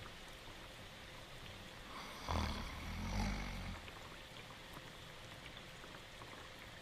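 Steady rain with one long, rasping cartoon snore a little over two seconds in.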